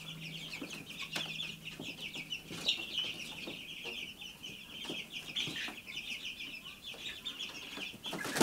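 A brooder of young chickens and Bourbon Red turkey poults peeping and chirping without pause, many short high chirps overlapping, with a few light knocks and scratches among them.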